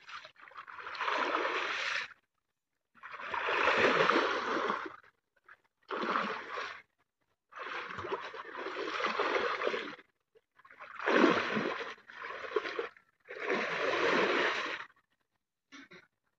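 Pond water splashing and churning in about seven bursts, each a second or two long, as a man wades through it, beating the water to drive fish into a gill net.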